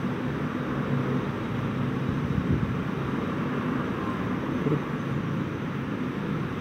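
Steady low engine hum over even outdoor background noise.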